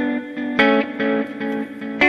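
Background music: electric guitar with distortion, in a run of repeated chords struck about every quarter to half second.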